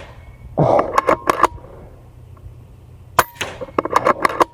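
FX Crown Continuum .25 PCP air rifle firing: one sharp crack about three seconds in, with a quick cluster of clicks following each shot.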